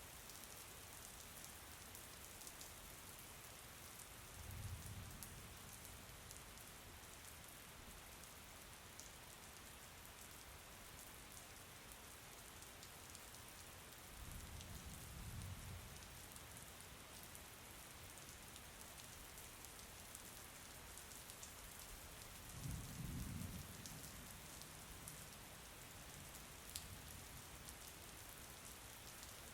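Steady, faint rainfall hissing, with three short low rumbles about ten seconds apart.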